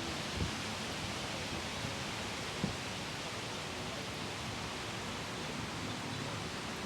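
Steady rush of strong wind, with two brief low thumps about half a second and two and a half seconds in.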